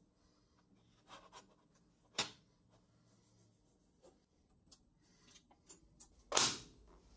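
Light taps and clicks of thin wooden strips, popsicle-stick shims and plywood runners, being set into the steel miter slots of a table saw top, with one sharper click about two seconds in. A brief louder rustle comes near the end.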